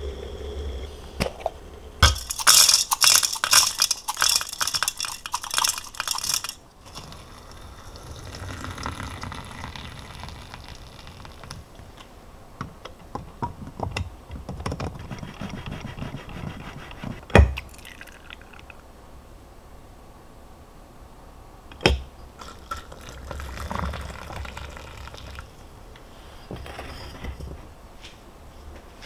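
Tea being brewed in a glass tea maker with an infuser. There is a loud stretch of pouring and splashing about two seconds in, then quieter liquid pouring and filling, and two sharp clinks of glass or of a lid being set down.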